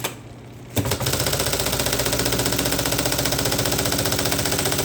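IBM Selectric I electric typewriter with its motor running and the mechanism cycling over and over. There is a sharp click at the start and another just before a second in, then a rapid, even mechanical clatter of many strokes a second over the motor's steady hum. The mechanism is driven by a repaired timing belt and runs smoothly.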